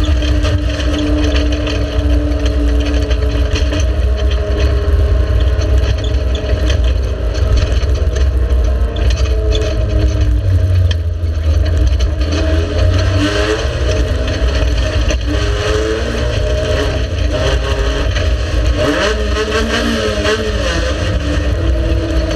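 Race car engine running hard, steady at first, then its pitch sweeping up and down through the revs a little past the middle and again near the end.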